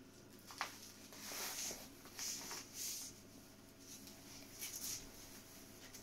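Velcro (hook-and-loop) straps of a straitjacket being pressed on and adjusted across the back: several short rasps, with a single sharp click about half a second in.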